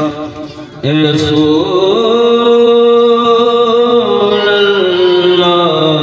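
A man chanting devotional verse (naat recitation) in long held notes that step up and down in pitch, after a brief pause for breath near the start.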